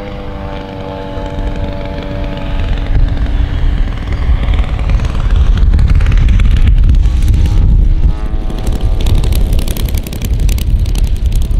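Three-cylinder four-stroke 150cc KOLM IL150 engine of a large model Spitfire running steadily at low throttle on landing approach. It grows louder as the plane comes close, with a heavy low rumble toward the middle.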